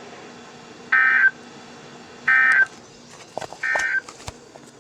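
NOAA Weather Radio SAME end-of-message signal: three short, identical bursts of warbling digital data tones, evenly spaced a little over a second apart, marking the end of the weekly test. A few faint clicks near the end.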